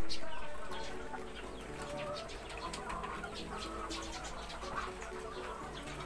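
A flock of caged laying hens clucking.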